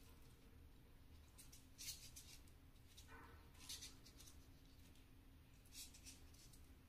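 Faint rustling of zongzi leaves being folded and pressed by hand around a sticky rice dumpling: a few short, soft crinkles, the clearest about two seconds in and just before the middle, over near silence.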